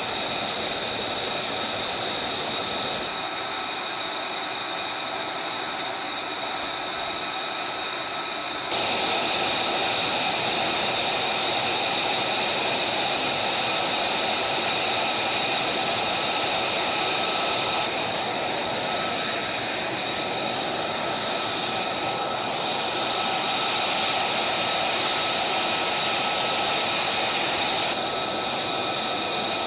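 Steady mechanical running noise with several high, steady whine tones over a rushing hiss. It shifts abruptly in level and character a few times.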